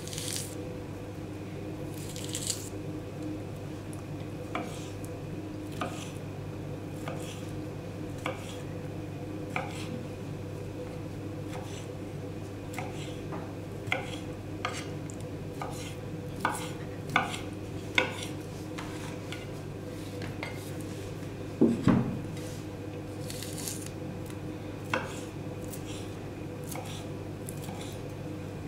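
Kitchen knife cutting peeled orange segments on a wooden cutting board: scattered, irregular knocks of the blade against the board, the loudest a double knock about three-quarters of the way through. A steady low hum runs underneath.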